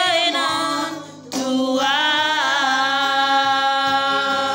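A singer sings a Batak-language song over electronic keyboard accompaniment: a wavering phrase breaks off about a second in, then one long note with vibrato.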